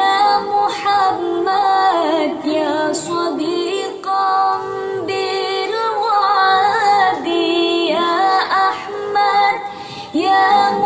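A woman's voice singing an Arabic sholawat melody in long, winding phrases that slide up and down in pitch.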